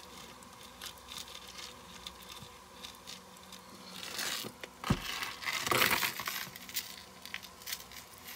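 Metal chain necklaces being handled and untangled: light clinks at first, then louder rustling and jingling about halfway through, with a single sharp knock.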